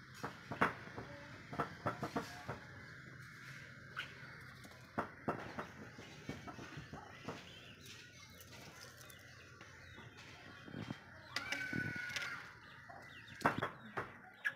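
Young chickens feeding on a concrete path: soft clucks and scattered short, sharp taps as they peck, with one longer drawn-out call near the end.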